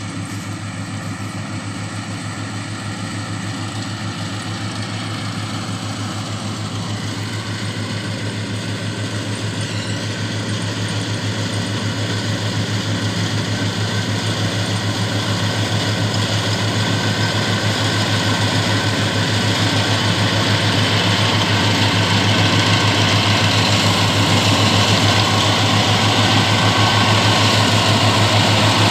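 Kubota combine harvester running steadily while harvesting rice, with a constant engine hum under the noise of its cutting and threshing, growing steadily louder as it comes closer.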